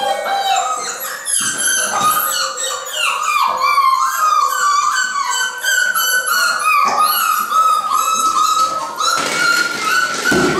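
A litter of beagle puppies yelping and whining together, many short high cries overlapping without a break.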